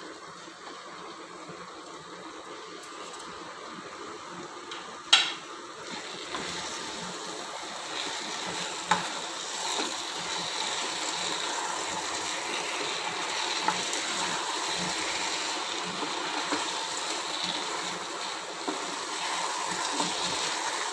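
Fried cauliflower florets being stirred into sauce in a non-stick kadai on a gas flame: the sauce sizzling, with a spatula scraping and tapping against the pan. A sharp knock comes about five seconds in, after which the sizzling and stirring get louder.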